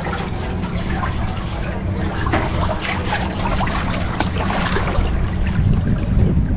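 Water splashing and sloshing around a camera at the waterline of a pontoon boat, with irregular splashes over a steady low rumble.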